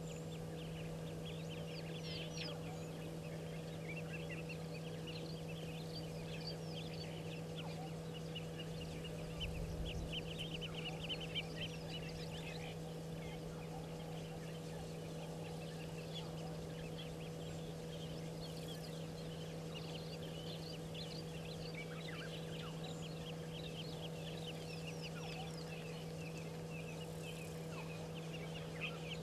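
Many birds chirping and chattering in rapid, overlapping short calls over a steady low electrical hum, with a brief low rumble about ten seconds in.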